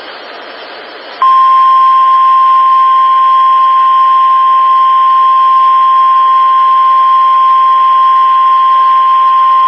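NOAA Weather Radio's 1050 Hz warning alarm tone: after about a second of radio hiss, a single loud, steady tone comes on and holds unbroken, the alert that a warning message is about to be broadcast.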